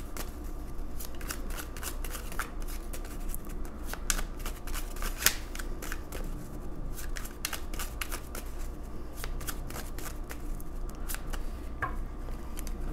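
A deck of tarot cards being shuffled by hand: a long run of irregular, quick card-on-card clicks and slaps, with one sharper snap about five seconds in.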